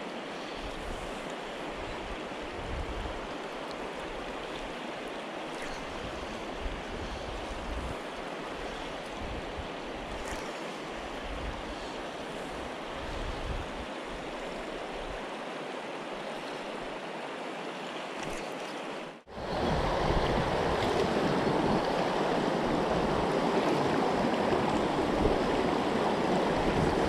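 River water rushing steadily past the bank, with irregular low rumbles of wind on the microphone. About 19 s in it cuts to a rougher stretch of rapids, where the rushing water is noticeably louder.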